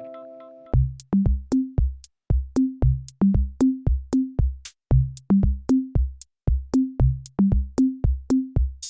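Background music: a held chord fades out, then a drum-machine beat of low, pitched drum thumps with light clicks, about three hits a second. A swishing cymbal swell near the end leads back into the full arrangement.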